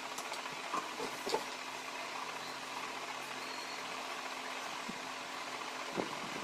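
Steady background hiss with a faint low hum, broken by a few faint clicks.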